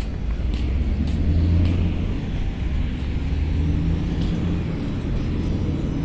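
A motor vehicle's engine running steadily nearby, a low humming rumble, with faint light ticks at a walking pace.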